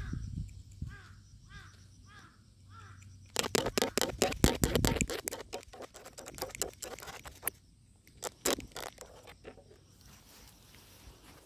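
A bird calls several times in short, evenly spaced calls, then a dense run of scraping and crackling clicks as a wire is worked into a longhorn beetle larva's bore hole in the tree trunk. The scraping is loudest about four to five seconds in and thins to scattered clicks afterwards.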